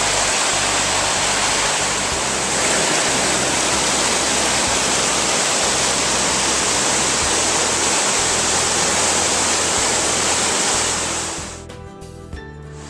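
Loud, steady rush of flowing water that falls away sharply near the end.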